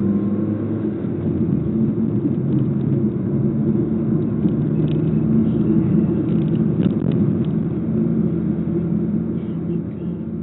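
Mazdaspeed 3's turbocharged four-cylinder engine droning steadily with road noise while the car is driven, heard from inside the cabin. The drone fades out near the end.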